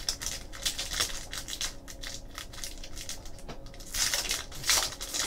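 Trading-card pack wrapper being torn open and crinkled, with cards rubbing and sliding against each other: a dense run of small crackles that grows louder about four seconds in.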